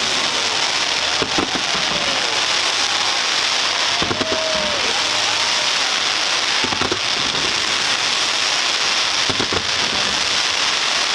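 Fireworks display: a dense, steady crackling hiss like heavy rain, with several short whistles gliding up and down in pitch. A few bangs go off, around four seconds in, near seven seconds and near nine and a half seconds.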